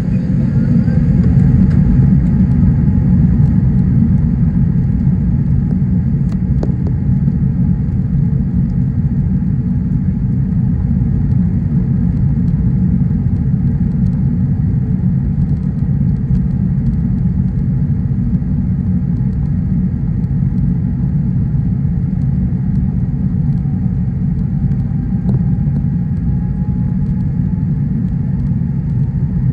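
Cabin noise of an Airbus A380 taxiing: a steady low rumble of the engines and wheels, heard from inside the cabin at a window seat, with a faint whine that rises slightly near the end.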